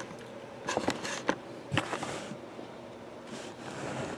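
Faint handling sounds from a cardboard trading-card box held and turned in the hands: a few light taps in the first two seconds, then soft rustles.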